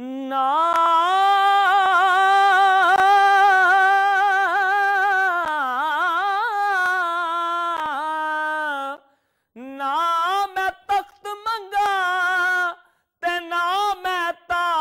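A man's solo voice singing a naat, unaccompanied: one long held note, ornamented with wavering turns, lasting about nine seconds, then after a short break several shorter sung phrases.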